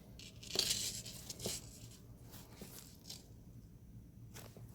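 Rustling and a few light clicks from a tangled necklace being handled and worked loose by hand, a scratchy rustle in the first second followed by scattered small clicks.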